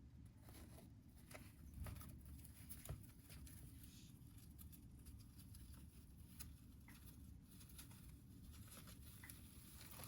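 A pet hamster's faint, irregular scratching and clicking, with a couple of slightly louder clicks about two and three seconds in.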